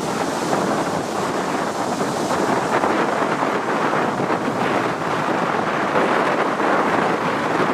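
Strong gusty headwind buffeting the microphone, with choppy river waves washing around the boat.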